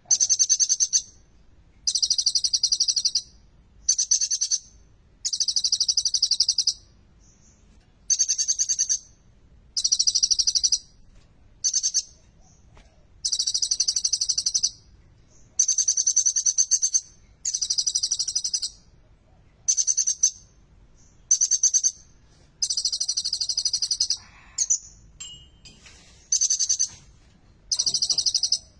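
Kolibri ninja (konin) sunbird singing in full voice: short, high-pitched, rapid song phrases about a second long, repeated one after another with brief pauses, in a song that carries imitations of the bar-winged prinia (ciblek).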